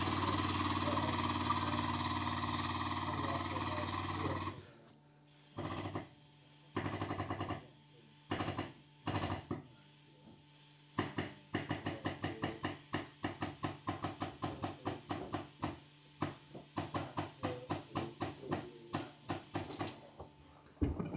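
Hydraulic pump of a body-straightening jig's pulling ram, working a chain pull on a dented rear quarter panel. It runs steadily, stops about four seconds in, then runs in a few short bursts, and from about the middle it pulses in quick regular strokes, about three a second, as the pull takes up load.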